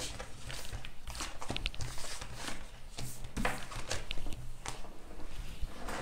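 Handling noise: tarot cards being gathered and slid together on a tabletop, then the camera being picked up and moved, with irregular soft scrapes and taps.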